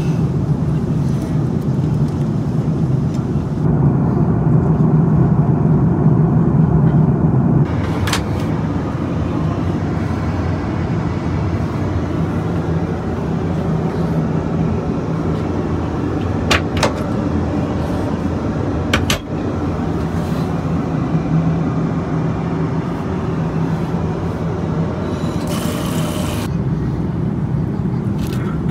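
Steady low rumble of an airliner cabin in flight, with a few sharp clicks.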